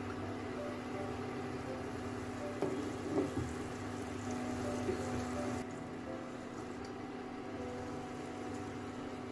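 Induction cooktop humming steadily with its cooling fan running under a pan of melting butter, with a few soft taps and scrapes of a silicone spatula in the pan about three seconds in.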